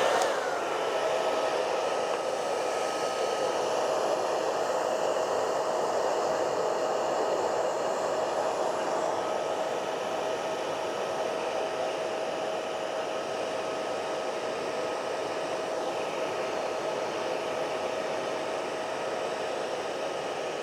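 Hair dryer switched on and running steadily, a steady motor whine over the rush of air; the whine settles within the first second, then holds. It is heating the iPad's screen adhesive to soften it before prying.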